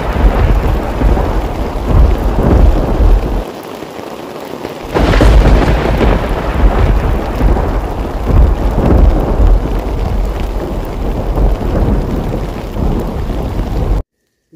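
Heavy rain with thunder, loud and dense, easing briefly about three and a half seconds in, swelling again a second and a half later, and cutting off suddenly near the end.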